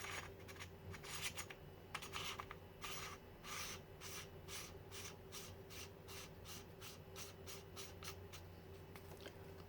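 Metal bezel being screwed by hand onto an atomiser hand crimper to retain the collet: a quick run of faint, short scraping rubs of threads and metal parts, thinning out toward the end.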